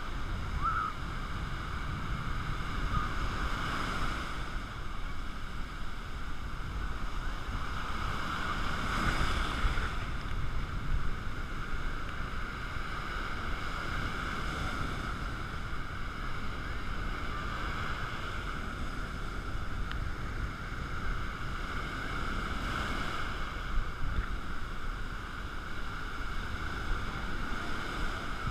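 Sea surf breaking and washing up the shore, a steady rush that swells every few seconds as each wave comes in.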